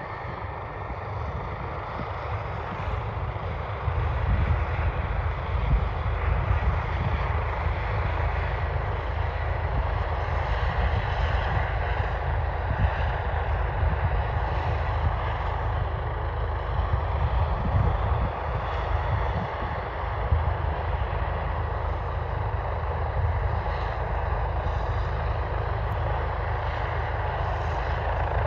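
DRF rescue helicopter's turbine engines and main rotor running on the ground ahead of lift-off: a steady turbine whine over a low rotor rumble, growing louder about four seconds in and then holding steady.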